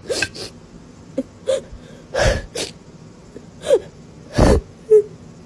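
An animal making a series of short sneeze-like snorts and brief whimpering squeaks, with short gaps between them.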